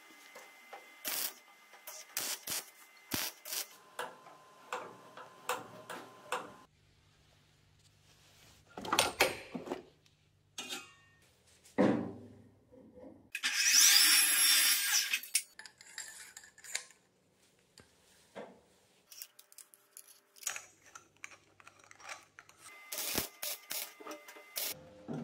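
Clicks, taps and knocks of steel tubing and tools being handled and fitted. About halfway through comes a loud crackling hiss of about a second and a half: a short tack weld from a stick (arc) welder.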